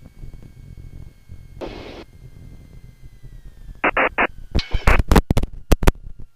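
Cessna Skyhawk engine idling during the landing rollout, heard from inside the cabin: a low hum with a faint whine slowly falling in pitch. A short hiss comes about two seconds in and three brief bursts of static around four seconds. From about four and a half seconds, loud irregular crackles and knocks take over.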